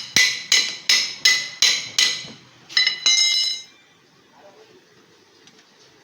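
A hammer striking metal in quick, even ringing blows, about six in the first two seconds, followed by a brief ringing metallic clatter about three seconds in, while a motorcycle wheel is being refitted after a tyre change.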